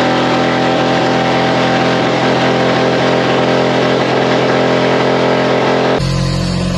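Ford Ranger pickup's engine running steadily at high speed in third gear, kept alive on aerosol spray paint and brake cleaner sprayed into its intake. About six seconds in the sound cuts to a duller recording of the same steady engine note.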